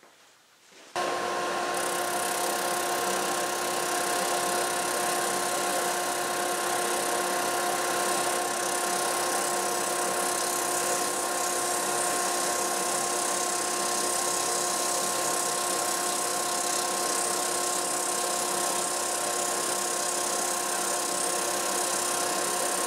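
Drum sander driven by a drill press, with a dust collector drawing through a hood over the drum, starting about a second in and then running steadily with a constant hum over a rushing noise, while curved template edges are sanded against the drum.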